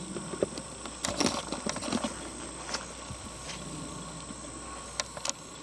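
Footsteps pushing through dense undergrowth: leaves rustling and twigs snapping in scattered crackles, busiest about a second in, with a couple more snaps near the end.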